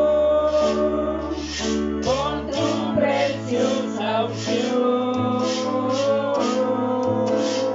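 A small group singing a worship song in Spanish over an electronic keyboard holding sustained chords and a bass note. The chord and bass change about two and a half seconds in.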